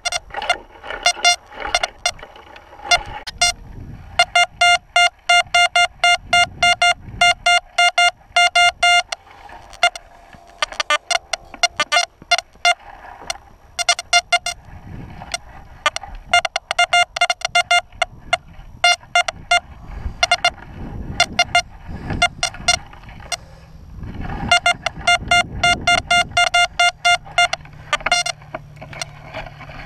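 XP Deus metal detector beeping in fast, clipped runs of short mid-pitched bleeps as the coil sweeps, the short, ratty signals of iron targets in iron-littered ground. Scrapes of a hand digger in dry dirt come between some of the runs.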